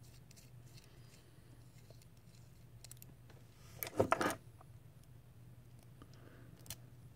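Small metal clicks and a short clinking rattle from the parts of a rebuildable tank atomizer being handled and fitted together, loudest about four seconds in, over a low steady hum.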